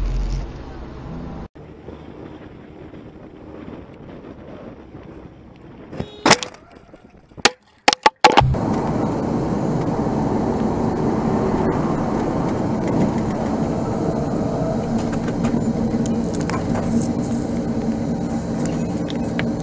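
Dashcam road noise from a moving vehicle, broken about six seconds in by one sharp bang and, a second or two later, a quick cluster of sharp cracks. Then a louder, steady driving noise with a low engine hum takes over.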